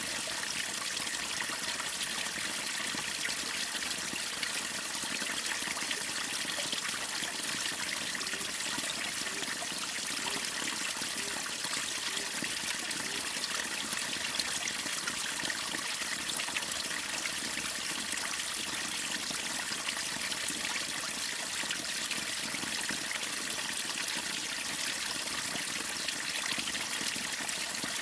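Waterfall and river water running and splashing, a steady, even rush of water.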